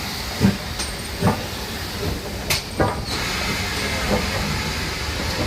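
Great Western Railway Manor-class steam locomotive 'Lydham Manor' with steam hissing steadily. A few short knocks sound in the first three seconds.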